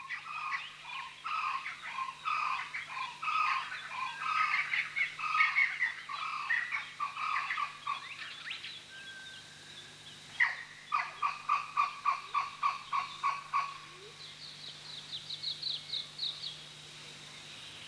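Wild animal calls: a run of chirping calls, then from about ten seconds in a rapid series of pulsed calls, about six a second, and near the end a higher series of quick notes.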